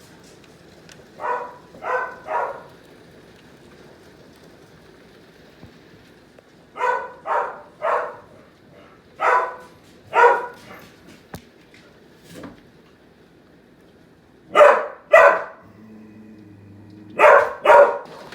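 A dog barking in short runs of two or three barks, about a dozen barks in all, over a faint steady hiss.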